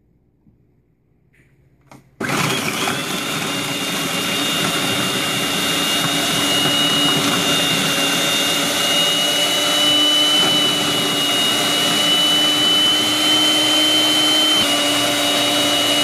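Electric food processor switched on about two seconds in, its motor running steadily with a high whine as it chops ginger and green chilies. Its pitch shifts slightly near the end.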